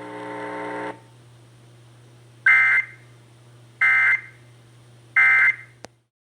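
Emergency Alert System end-of-message code: three short bursts of shrill digital data tones about 1.3 seconds apart, signalling the end of the alert. A low steady hum runs underneath, and the audio cuts off with a click near the end.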